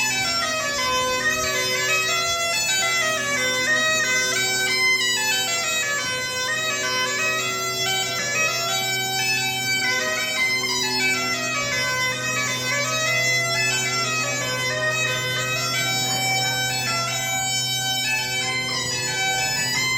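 Bagpipe (gaita) playing a quick melody of rising and falling note runs over a steady, unbroken low drone.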